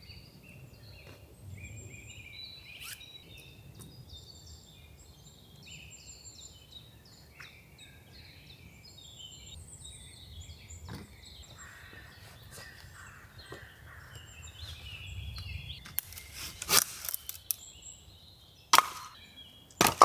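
Songbirds chirping and singing in the woods, with scattered small clicks. Near the end come a few loud, sharp cracks of wood being broken up for firewood.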